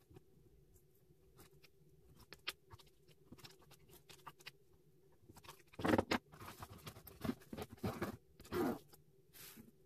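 Plastic Ohuhu markers clicking and rattling against each other as they are picked out of their packed fabric case, followed in the second half by several louder zipper pulls as the case is zipped shut.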